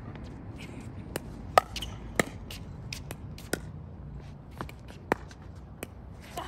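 Pickleball rally: sharp pops of paddles striking the hollow plastic ball, about one every half second to second, some louder than others, the loudest about a second and a half in.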